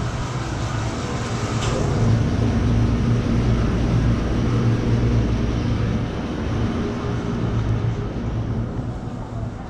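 Motor vehicle engine running with a steady low hum, slightly louder for a few seconds, with one short click about one and a half seconds in.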